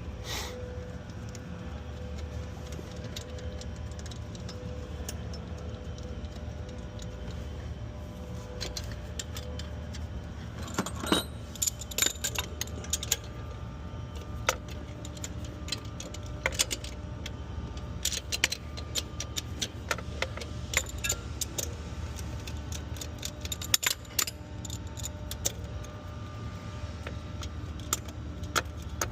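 Metal hand tools and bolts clinking and ticking while the intake horn's bolts are run down on a 6.7L Cummins, sparse at first and frequent from about ten seconds in, over a steady low hum.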